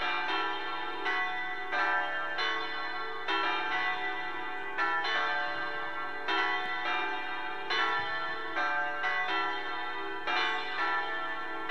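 Church bells ringing, a continuous peal of struck notes at about one to two a second, each note ringing on into the next.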